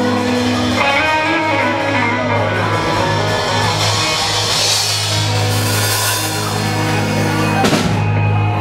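Live country-rock band of electric guitars, bass and drums holding one long ringing chord over washing cymbals. It closes with a hit about a second before the end and then stops, ending the song.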